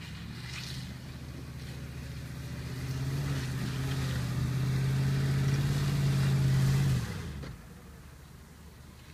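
BMW X5 SUV's engine pulling as the vehicle climbs a grassy slope, growing steadily louder at an even pitch for about seven seconds, then dropping away sharply.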